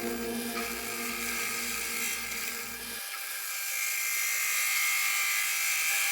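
Small electric power tool motor running with a steady high-pitched whine, growing a little louder in the second half.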